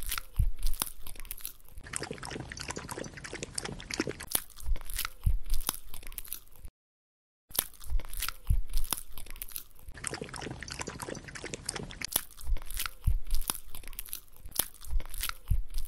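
Golden retriever licking and lapping, a dense irregular run of wet mouth clicks and smacks with a few soft low thuds, broken by a short silence about seven seconds in.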